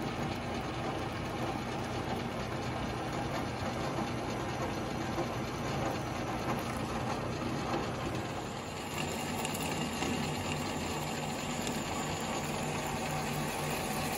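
Machine-driven drill bit boring holes through an aluminum plate, with the drive running steadily and chips being cut. The low hum changes about nine seconds in.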